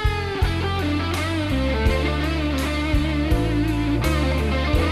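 Background music: electric guitar playing bending notes over a steady bass line and regular drum hits.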